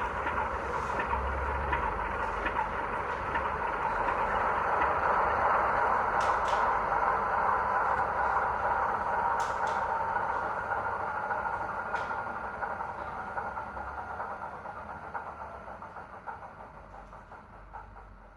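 Recorded Class 33 diesel locomotive sound, its Sulzer engine running, played by a DCC sound decoder through the O gauge model's small speaker. The sound runs steadily with a few sharp clicks, then fades away over the last few seconds.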